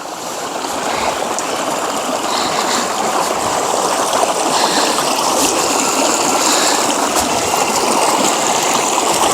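River water rushing over stones, a steady noise that grows louder over the first second or so and then holds.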